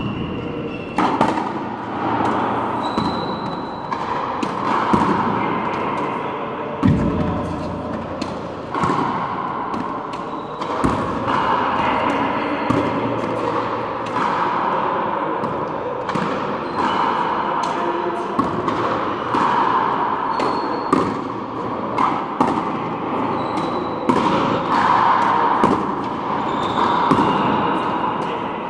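Frontenis rally: the small rubber ball smacking off strung racquets and the frontón wall again and again, each hit echoing through the large indoor hall. Short high squeaks of shoes on the court floor come between hits.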